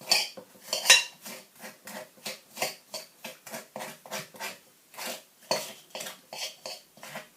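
A knife chopping soft butter in a mixing bowl, the blade tapping against the bowl about three times a second in a steady run.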